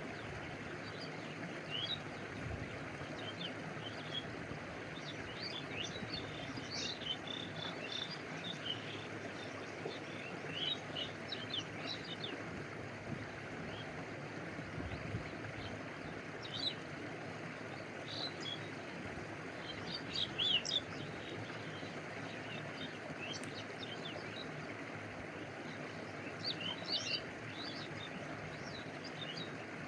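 Steady rush of a stream with water lapping close by. Small birds chirp on and off above it, most busily about a third of the way in, around two-thirds of the way through and again near the end.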